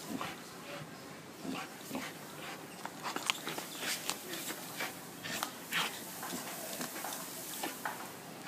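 Young American Pit Bull Terrier making scattered, irregular short clicking and scuffing sounds, with no bark.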